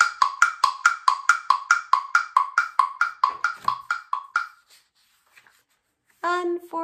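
A small hollow-sounding percussion instrument struck quickly and evenly, about four knocks a second, standing for Ned running away; the strokes thin out and stop after about four and a half seconds.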